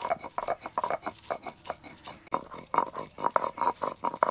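Ginger and garlic being ground by hand on a grinding stone: a run of uneven scraping, crushing strokes, several a second.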